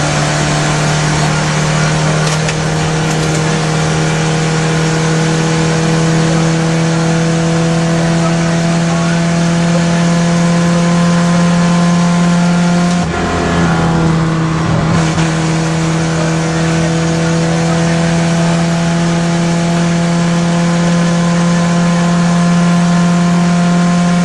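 Rally car engine heard from inside the cabin, held at high revs under load with its note slowly climbing. About thirteen seconds in the note breaks off briefly for a lift or gear change, then picks up and climbs again.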